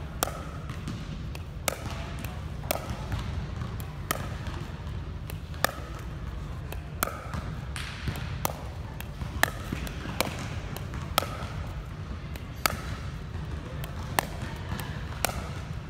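A tethered plastic pickleball being dinked with a paddle: sharp pocks, roughly in pairs about every second and a half, as the paddle strikes the ball and the ball bounces on the hard gym floor, over a steady low hum.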